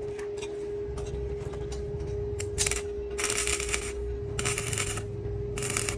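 Stick (arc) welding on steel: the electrode's arc crackling in about four short bursts in the second half, over a steady hum.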